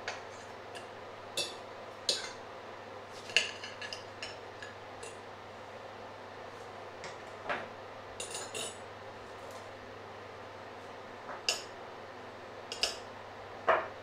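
Metal fork and knife clinking and scraping against china plates and tapping down on a wooden board: about a dozen short, separate clinks at uneven intervals, a few of them sharper and louder.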